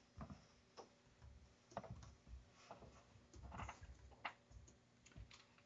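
Faint, irregular taps and clicks of typing on a laptop keyboard, with short gaps between strokes.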